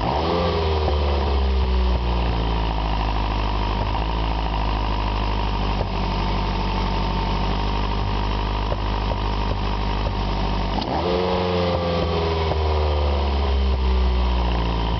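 Ferrari 308 GTB's V8 engine idling, blipped twice: a quick rev that climbs and falls back right at the start, and another about eleven seconds in.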